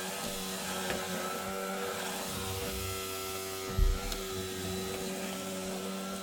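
A household electric appliance's motor running with a steady hum, with one dull thud about four seconds in.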